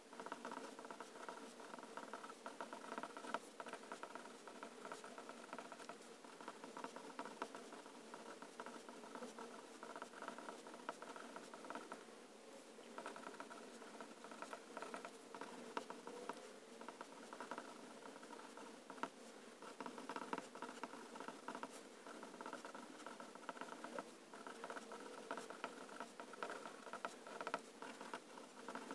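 Extra-fine steel nib of a Pilot Penmanship fountain pen scratching faintly across Rhodia dot-pad paper as a line of script is written, in runs of strokes with brief pauses between words.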